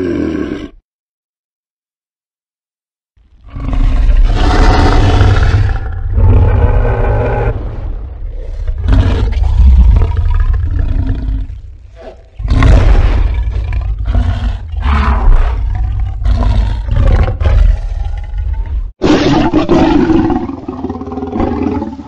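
Scorpius rex creature roars, custom sound design for the hybrid dinosaur. After about three seconds of silence a long roar with a heavy deep rumble beneath it starts, then a second roar after a brief break, and a third that cuts in sharply near the end.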